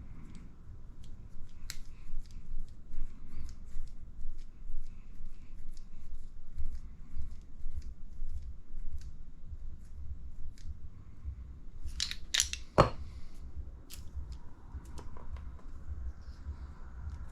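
Small parts of an RC buggy shock absorber being handled and fitted by hand: scattered light clicks and taps, with a cluster of sharper clicks about twelve seconds in.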